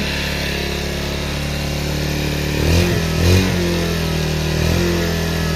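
Bajaj Pulsar motorcycle's single-cylinder engine idling steadily. It picks up speed briefly twice, a little after halfway, then settles back to idle.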